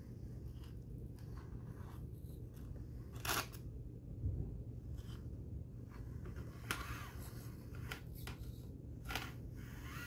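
Axial SCX24 Deadbolt 1/24-scale RC crawler working its way over rock: a steady low hum, with a handful of short scraping, crunching bursts as its tyres and chassis grind on the stone.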